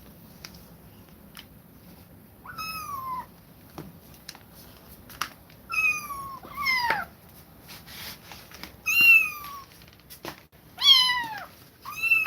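Kittens meowing: about six short, high-pitched mews, each falling in pitch, starting a couple of seconds in. A few faint ticks come before them.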